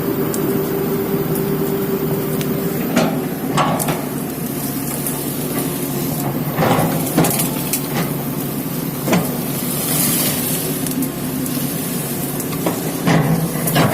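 Komatsu excavator's diesel engine running steadily under load, with several sharp cracks and snaps of wood breaking as trees and brush are cleared.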